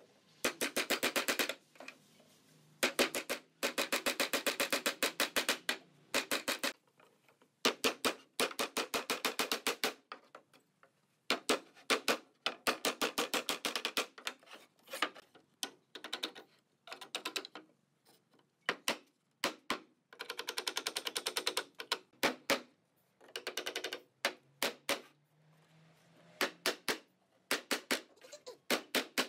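Wood-on-wood hammering: a wooden mallet and block knocking pine slats into slotted rails. It comes as fast runs of sharp knocks, several a second, in bursts of one to three seconds with short pauses between them.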